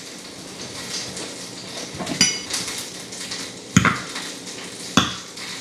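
Metal cutlery clinking against a plate: three separate clinks, the first with a brief high ring.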